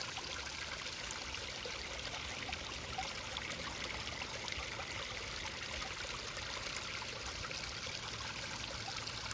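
Storm runoff from about nine inches of rain running through a rocky stream channel: a steady rushing trickle of water over stones.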